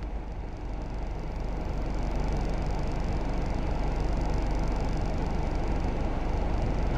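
Steady low rumble inside a closed car cabin: the parked car's engine idling.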